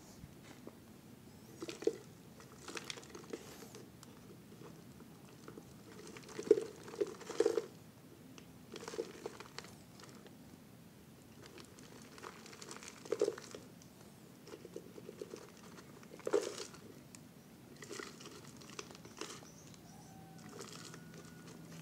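Hands scooping potting soil and pushing it into a thin clear plastic bottle: irregular crinkles of the bottle's plastic and gritty crunches and rustles of the soil, a few every couple of seconds.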